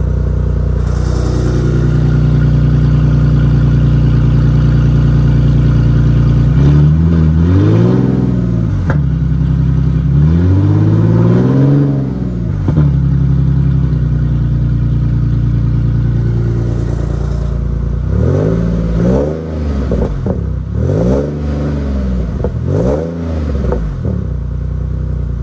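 Infiniti G37's 3.7-litre V6 idling through a loud aftermarket exhaust with its cutout valve open, which makes it sound more aggressive, close to a straight pipe. It is revved twice, each rev rising and falling over about two seconds, then idles again before four quicker blips near the end.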